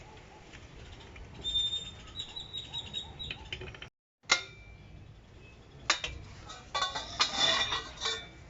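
Steel tools clinking and ringing against metal in scattered taps and rattles, with a sharp knock just after a brief dropout about four seconds in. The sound is typical of wheel-nut work with a steel wrench on a truck wheel.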